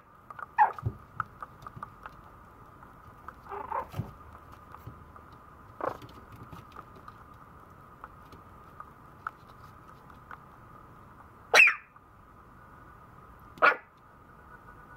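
Maltese puppy barking: about five short, single barks a few seconds apart, the last two much louder than the rest.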